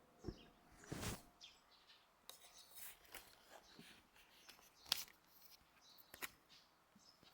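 Near silence, broken by a few faint short clicks and rustles, about a second in, near five seconds, and again a little after six seconds.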